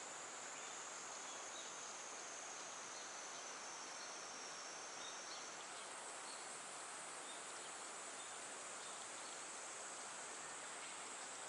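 Insects singing in a steady, high-pitched chorus over a soft, even hiss; the shrill band steps up higher about halfway through.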